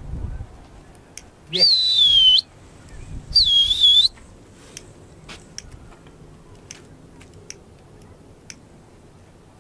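A person whistles twice, loud and high, each whistle lasting under a second, dipping in pitch and rising again at the end. It is a pigeon flyer's whistle to the flock circling overhead.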